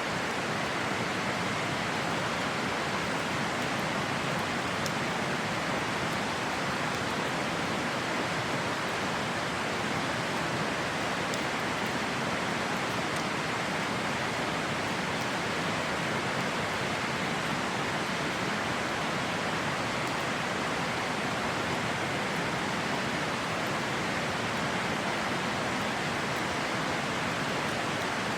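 River water rushing steadily, with a few faint crackles from a wood campfire.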